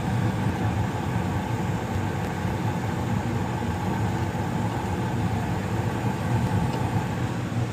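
Tempstar two-stage gas furnace running: a steady, even mechanical hum from its motors and burners.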